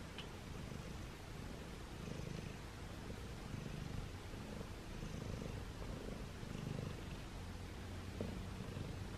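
A brown tabby cat purring while being stroked, a low purr that swells and eases about once a second.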